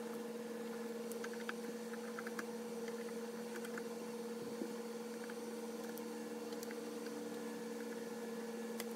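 A steady, low two-tone hum, with faint scattered clicks of a screwdriver turning out the faceplate screws of a Garmin GNS480 avionics unit.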